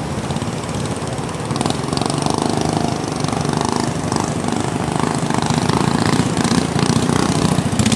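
Small fishing boat's engine running, getting louder as the boat comes closer.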